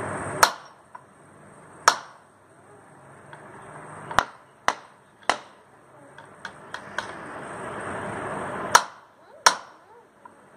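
About seven loud, sharp knocks at uneven gaps, with fainter ticks between them. A rushing noise swells for a couple of seconds and is cut off by one of the knocks near the end.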